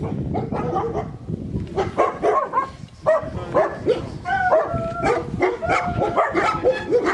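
Several dogs barking and yipping over and over in short calls, with a few longer whining notes about halfway through.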